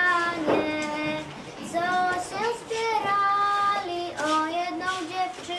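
Two young girls singing a Polish folk song together without accompaniment, in a melody of long held notes.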